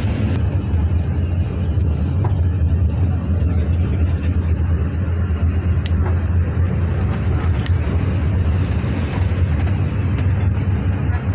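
Intercity bus driving along the road, heard from inside the cab: a steady low engine-and-road rumble.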